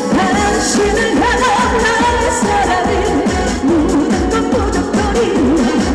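Live trot music over a loudspeaker backing track, with a steady dance beat and a gliding melody line carried by voice or instrument.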